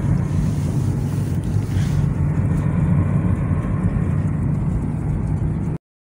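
Steady low rumble of road and engine noise heard inside a moving car. It cuts off suddenly near the end.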